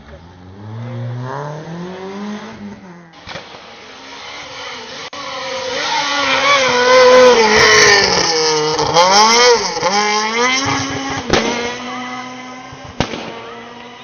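Two rally cars in turn: a Peugeot 106 rally car accelerating hard, its engine pitch rising, then after a cut a Renault Clio rally car driving flat out on a gravel stage, its engine getting louder as it comes near and passes, with gear changes and throttle lifts, then fading away. Two sharp cracks sound near the end.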